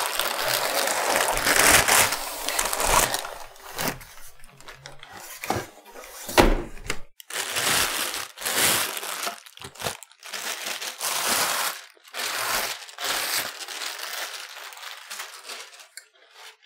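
Packaging crinkling and rustling in irregular bursts as a microphone stand is unwrapped, with a few sharp knocks, the sharpest about six and a half seconds in.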